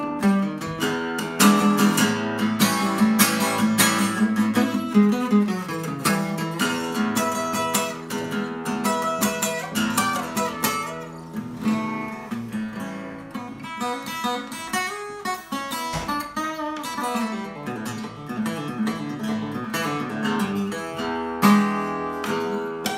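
Takamine cutaway acoustic guitar played solo: a blues piece of picked runs mixed with strummed chords.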